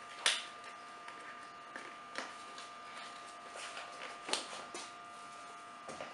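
Faint, irregular clicks and rustles over a steady high-pitched electrical hum, with the sharpest clicks about a quarter second in and about four seconds in.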